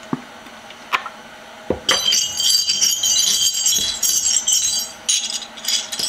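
Steel Starrett punches clinking and jingling against one another as they are rolled together in an oiled cloth rag. A few light separate taps come first, then about two seconds in a continuous run of metal-on-metal chinks starts, with a short break near the end.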